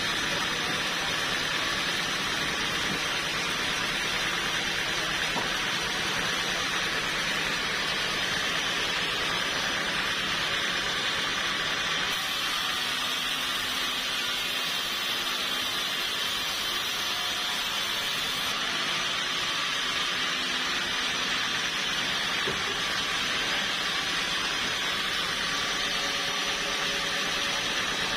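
Sawmill machinery running with a steady, continuous hiss-like noise.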